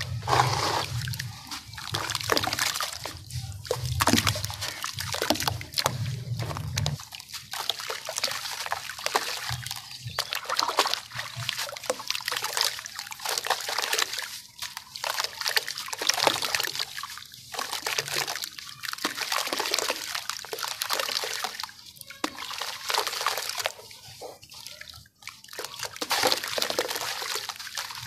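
Hands crumbling a lump of dry sand and cement over a tub of water: an irregular gritty crackle of breaking crumbs, with sand sprinkling and splashing into the water. A low churning of hands moving in the water stops about seven seconds in.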